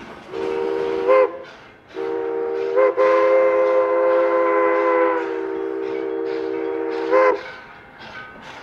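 1917 Baldwin 2-8-0 steam locomotive's chime whistle, several notes sounding at once, blown in blasts for a grade crossing: a blast of about a second, then a short one and a long one of about four and a half seconds, with the train running past.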